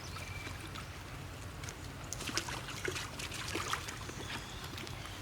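Water splashing and trickling as monkeys play in it, with a burst of small, quick splashes in the middle, over a steady low hum.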